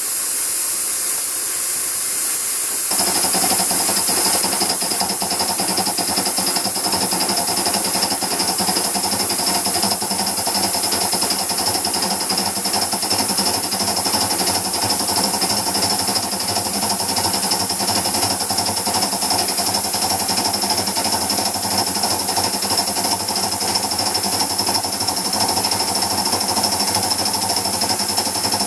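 Aster live-steam model of a BR 52 steam locomotive under steam: a plain steam hiss gives way abruptly, about three seconds in, to a steady rapid mechanical chatter with hissing steam.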